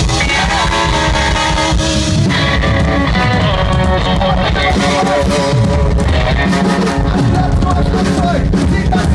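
Live rock band playing, with guitar and a wavering melody line above the accompaniment.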